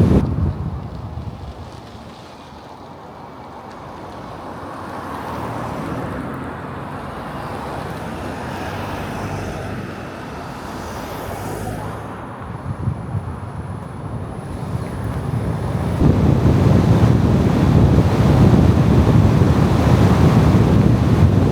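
Wind buffeting the microphone: an unpitched rushing that dips quieter a couple of seconds in, then swells into a loud low rumble for the last few seconds.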